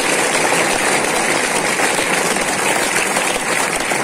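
Crowd applauding: many hands clapping at once in a loud, steady wash.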